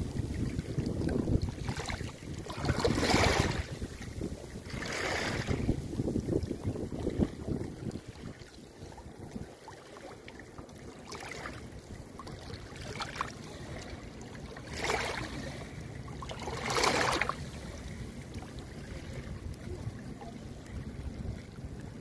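Small sea waves lapping and splashing in the shallows at the water's edge, a wash every couple of seconds, the loudest about three and seventeen seconds in. Wind rumbles on the microphone underneath.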